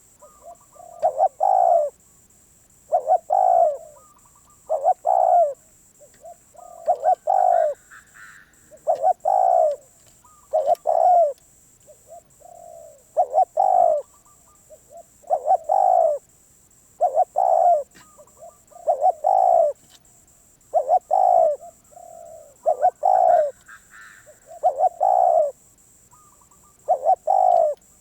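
Spotted dove cooing over and over: short coo phrases of a few notes each, repeated every second or two.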